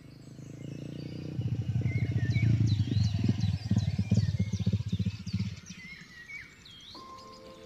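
Dirt bike engine running, growing louder over the first few seconds and dropping away about five and a half seconds in, with birds chirping throughout. Music comes in near the end.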